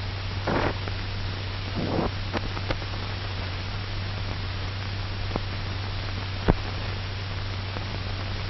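Steady hiss and low hum of an old optical film soundtrack, with scattered clicks and pops and two brief rushes of noise in the first two seconds.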